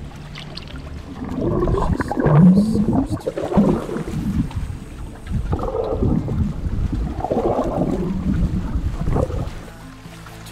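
Water rushing and bubbling around an action camera taken under the surface by a snorkeller, in two long surges with a short lull between them.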